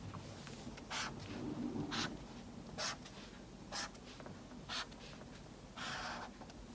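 Green felt-tip marker stroking across planner paper, colouring in headings: short scratchy strokes about once a second, six in all, the last one a little longer.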